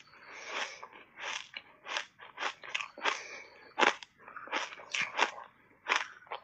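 Close-up crunching and chewing of shaved ice dusted with matcha and milk powder: a rapid series of crisp crunches, about two a second, the loudest about four seconds in.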